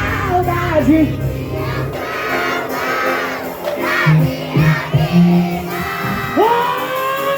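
Live band music with a crowd singing along loudly in many voices; the steady bass drops out about two seconds in.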